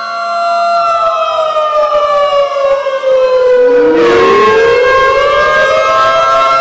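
Several loud sirens sounding at once, in the manner of tornado warning (civil-defence) sirens. One tone slowly winds down and then climbs back up about four seconds in, over other steady and gliding siren tones.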